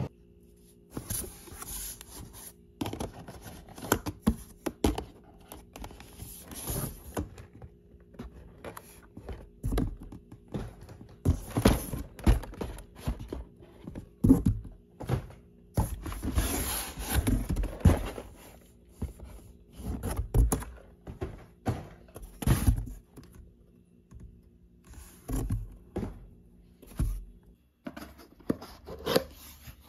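Cardboard boxes being handled, stacked and set down: a run of irregular thuds and knocks with scraping and rustling of cardboard. A faint steady hum runs underneath and stops near the end.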